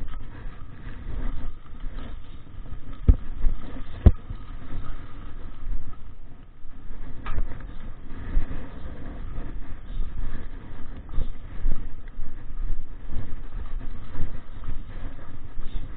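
Mountain bike jolting along a rough dirt trail: a steady low rumble with many small knocks, and two sharp knocks about three and four seconds in.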